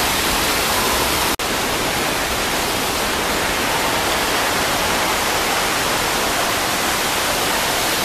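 Steady, loud rush of a large waterfall heard close to its plunge pool, the sound of Ditumabo Mother Falls' water crashing down. The sound drops out for an instant about a second and a half in.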